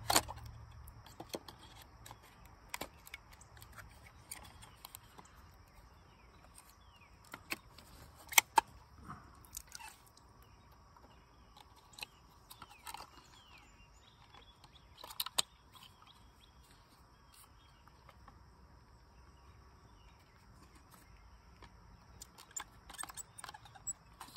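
Scattered plastic clicks and snaps as a fuel pump module is handled and the new pump and its filter sock are clipped into the plastic housing; a few sharper snaps stand out, one about eight seconds in and another about fifteen seconds in.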